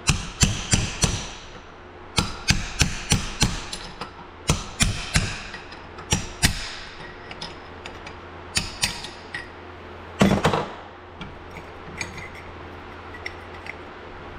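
Hammer striking metal in quick runs of several blows, each with a bright metallic ring, then a single heavier blow about ten seconds in.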